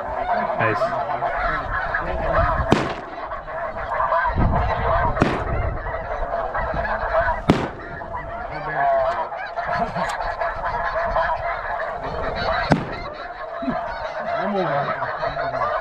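A dense chorus of snow goose calls, many overlapping honks running together without a break. A few sharp taps are heard along the way.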